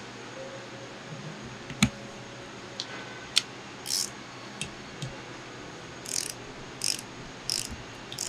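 Torque wrench ratcheting in short bursts while the water pump head's top-plate hex nuts are tightened to 35 foot-pounds, with a few sharp metallic clicks; the loudest is a single sharp click just under two seconds in.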